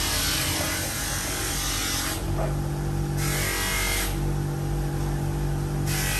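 Electric drill running steadily, used to lap the valves into their seats in a Perodua Kancil cylinder head. A constant motor hum with a noisy edge that twice drops away to a smoother hum, about 2 s in for a second and again for the second half.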